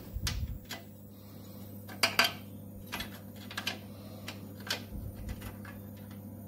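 Light metallic clinks and taps, a handful scattered through, the loudest about two seconds in: a bent steel repair piece knocking against the steel frame head as it is offered up and test-fitted by hand. A steady low hum runs underneath.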